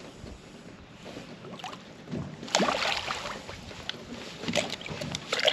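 Water splashing and sloshing at the side of a boat as a large catfish held in the water is released and kicks away. Quiet at first, the splashing starts about halfway through.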